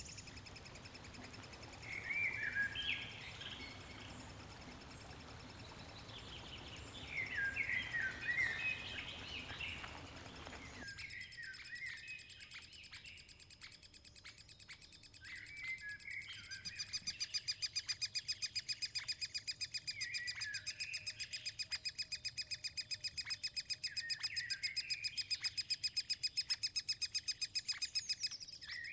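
Wild birds calling in short chirps. In the second half a fast, even, high-pitched pulsing trill runs on under further chirps.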